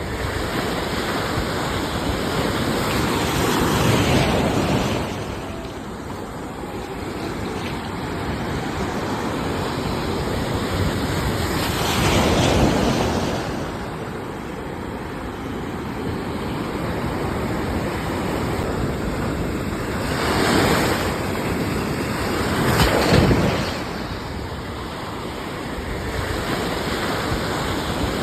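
Ocean waves breaking on a shore in a continuous wash, with a louder wave surging in and fading away every several seconds.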